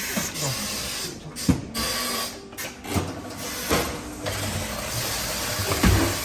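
Tyre-fitting work: an intermittent mechanical whirring with four louder short bursts, some sliding in pitch.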